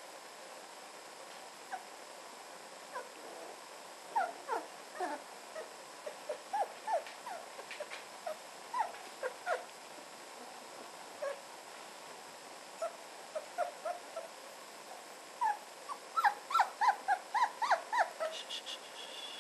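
Almost four-week-old red standard poodle puppies squeaking in short, high cries, scattered at first and coming thick and fast near the end.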